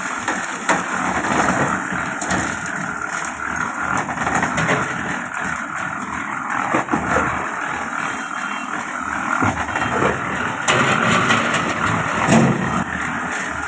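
An engine running steadily, with a few short knocks.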